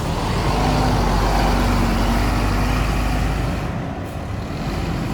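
Tour bus's diesel engine running as the bus pulls away, with a heavy low rumble that swells and then eases off about four seconds in.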